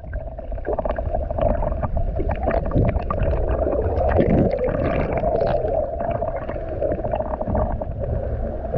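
Muffled underwater sound picked up by a camera held below the surface in shallow sea water: a low rumble under a steady hum, with many small crackling clicks.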